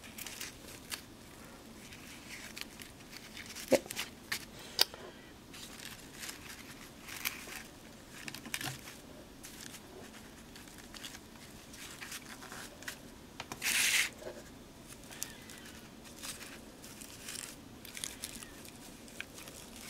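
Paper flowers and lace crinkling and rustling as they are handled and pressed onto a handmade card. There are a few small sharp clicks, and one louder, longer rustle a little past the middle.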